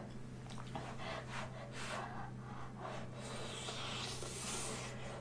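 Close-miked eating sounds: a woman biting into and chewing a kimchi dumpling, with a series of short wet mouth sounds and breaths through the nose and mouth, and a longer breathy stretch about four seconds in. A steady low hum runs underneath.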